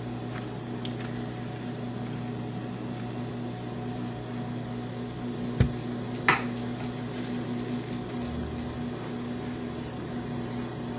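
Steady room hum of a running computer, a fan with a low electrical drone under it. Two short, sharp clicks come about halfway through.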